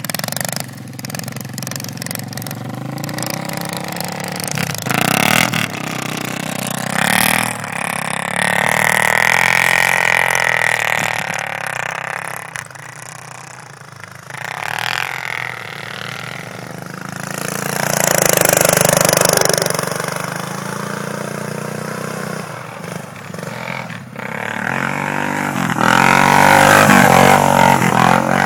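Small three-wheeled ATV engines running and revving, the pitch rising and falling as the riders accelerate and slide on snow. The sound swells to its loudest about two-thirds of the way through and again near the end, as a three-wheeler passes close.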